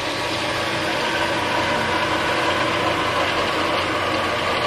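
WEN 4225 variable-speed drill press running, its motor and belt drive giving a steady hum, while its speed is wound down from about 1230 RPM to about 900 RPM.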